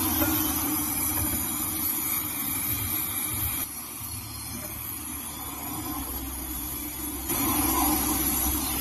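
Brazing torch flame hissing steadily as a refrigerator's copper refrigerant pipe joint is brazed. The hiss drops abruptly in level about three and a half seconds in and comes back up about seven seconds in.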